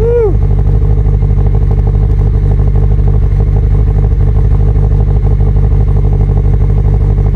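Subaru WRX STI's turbocharged EJ257 flat-four idling steadily through its quad-tip exhaust while warming up after a cold start, with the cam lope of its freshly installed camshafts. A short whooping shout at the very start.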